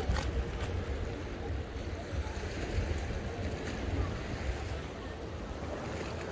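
Wind buffeting the microphone in an uneven low rumble, over a steady wash of sea surf.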